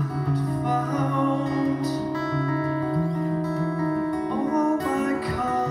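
Live acoustic guitar music: an acoustic guitar strummed and picked over long sustained notes that change every second or two.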